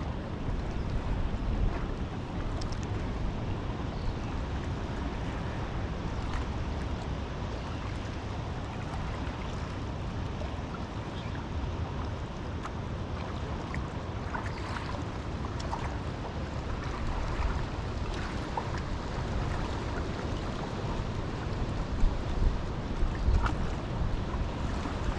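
Wind buffeting the microphone in a steady rushing rumble, with a few stronger gusts and faint clicks a little before the end.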